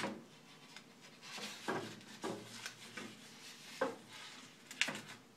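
A rubber-gasketed MDF ring and wooden blocks being handled and shifted on a wooden worktop: faint rubbing and scraping with a few light knocks spread through.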